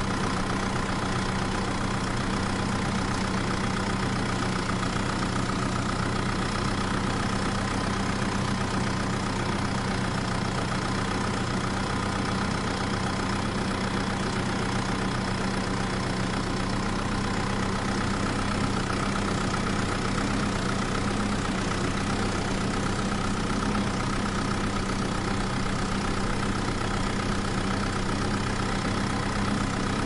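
A tractor-style engine idling steadily, holding the same pitch and level throughout, with no revving.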